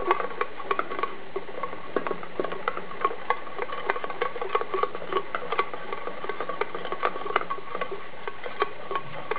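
Wire whisk beating a thin egg-and-cornflour tempura batter in a stainless steel bowl: quick, irregular clicking and tapping of the wires against the metal.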